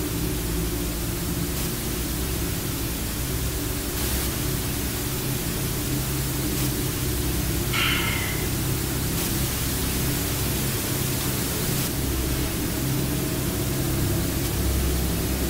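A steady loud hiss over a low, even drone, with one brief higher-pitched chirp about eight seconds in.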